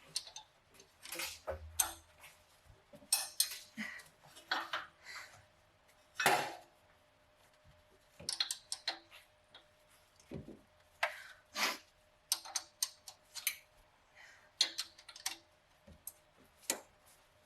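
Hand wrench clinking and knocking on old exhaust manifold bolts as they are worked loose: irregular metallic clicks and taps, in small clusters with pauses between.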